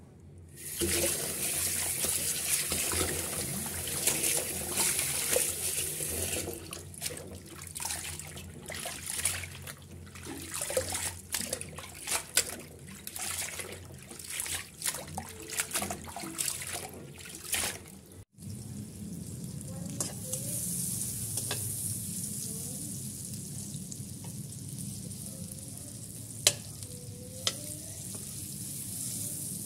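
Running water splashing over a basin of alugbati (Malabar spinach) leaves as they are washed by hand, with many small splashes and rustles. About two-thirds of the way through this cuts off abruptly and food sizzles steadily in hot oil in a wok, stirred with a spatula, with a single sharp clink near the end.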